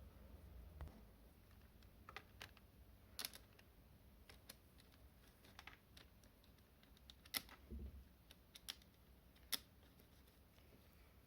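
Faint scattered clicks and taps of small plastic parts being handled, with a few sharper clicks about three, seven and a half, and nine and a half seconds in.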